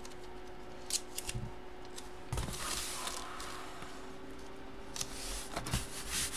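Hands handling cards and packaging on a tabletop: a few light taps and knocks, with a short stretch of rustling a couple of seconds in, over a faint steady hum.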